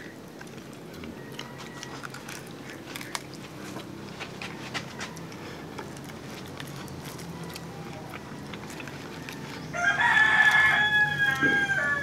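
A rooster crows once near the end, a long call of about two seconds that drops in pitch as it ends. Faint scattered clicks come before it.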